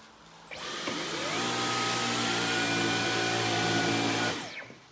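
Dyson V15 cordless stick vacuum switched on: its motor whine rises as it spins up about half a second in, runs steadily at full suction, then winds down and stops near the end.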